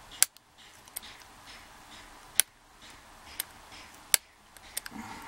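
Sharp little clicks of a metal probe against a padlock body, about half a dozen at uneven intervals, as the probe is worked into the pin that holds the padlock's core.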